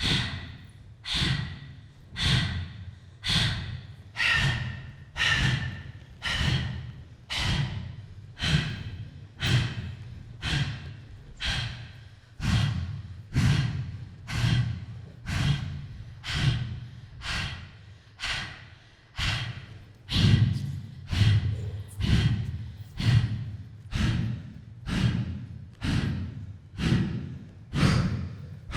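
Rhythmic human breaths, about one a second, each a sharp breath that starts suddenly and quickly fades away.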